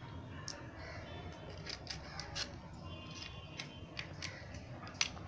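Climbing perch being cut on the fixed curved blade of a boti: irregular crisp clicks and scrapes as the blade bites through the tough fish, the loudest near the end.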